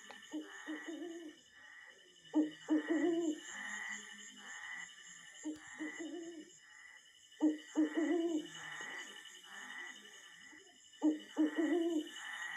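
Recorded owl hooting, a night-time sound effect played through TV speakers, several calls a second or two apart over a steady high-pitched hum.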